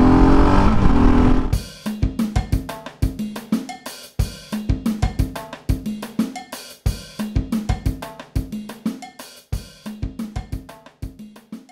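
For about the first second and a half, a Husqvarna 701 Supermoto's single-cylinder engine runs on the road under wind noise. It cuts off abruptly into outro music carried by a drum kit beat, with snare, hi-hat and cymbals, fading out near the end.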